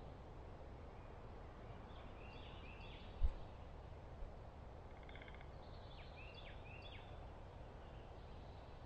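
Small songbirds chirping in two short runs of quick down-slurred notes, with a brief harsher call about five seconds in, over a steady low background rumble. A single low thump about three seconds in.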